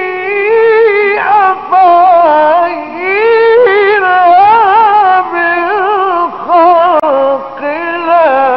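A male Quran reciter's voice in mujawwad recitation, holding a syllable in a long ornamented melisma. The melody winds up and down with vibrato, in several phrases with short breaks for breath.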